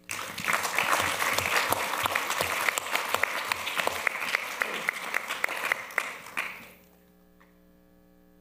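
Audience applauding: many people clapping, starting suddenly and dying away after about six and a half seconds.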